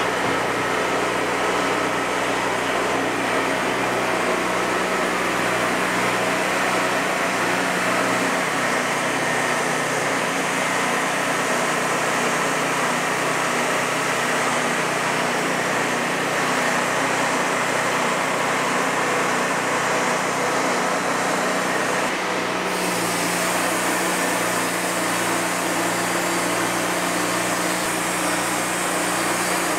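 Wood-Mizer LT40 Hydraulic Wide band sawmill running steadily, its engine and band blade sawing slabs from a monkey puzzle log. The sound changes abruptly about three-quarters of the way through.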